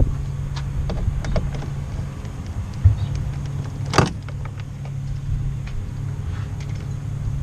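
Quarter-inch socket ratchet backing out door bolts on a Ford F-150 half door: scattered light clicks, with one sharp metallic click about four seconds in and a dull knock a little before it, over a steady low background hum.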